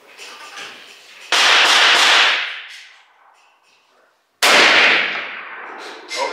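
Two high-powered rifle shots about three seconds apart, each a sudden loud crack that rings out and dies away over about a second.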